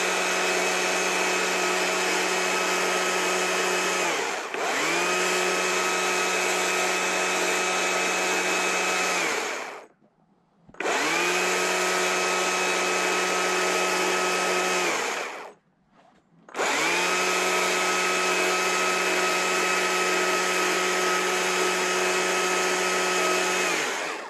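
Small gas chainsaw running at high revs, the nose of its bar carving the rounded top of a two-inch green pine branch. It gives a steady high whine in three long runs, dipping briefly about four seconds in. Near ten and sixteen seconds it falls away and cuts off, then revs back up each time.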